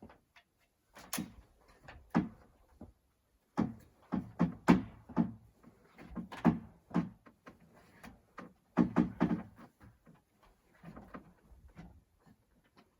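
Irregular knocks and thuds on wood, single and in quick clusters, from construction work on the timber cabin.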